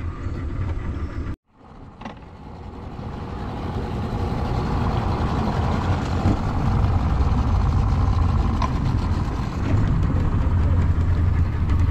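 Boat outboard motor running steadily with the boat under way, a low drone. The sound cuts out abruptly about a second and a half in, then fades back up and holds steady.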